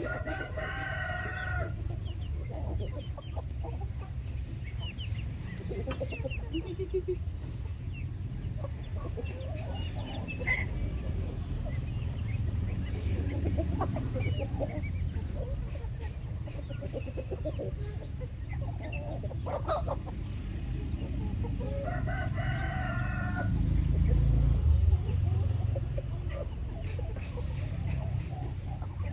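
Chickens clucking as they feed, with a rooster crowing twice, once at the start and again about 22 seconds in. A rapid high chirping comes in runs over a steady low rumble.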